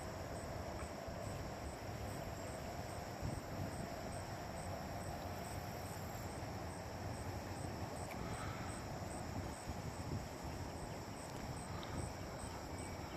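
Steady outdoor ambience of insects chirping in a fast, even pulse, with a low, steady rumble underneath.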